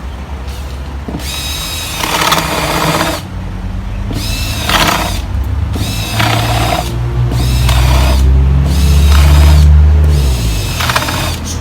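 Music with a singing voice in short phrases over a heavy bass line that grows louder near the end, then cuts off sharply.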